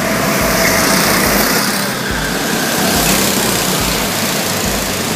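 Small go-kart engines running as several karts lap the track, one passing close by, heard inside a large hall.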